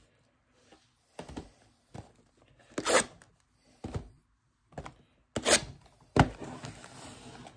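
Trading-card blaster boxes being cut and torn open: a run of short, separate rips, about eight in all, with a longer one near the end.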